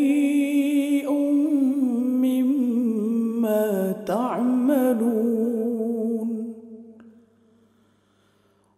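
A man's solo Quran recitation (tilawat) in a melodic, drawn-out chant, holding long ornamented notes with a wavering pitch at the close of a verse. The voice fades out about seven seconds in, leaving a short pause.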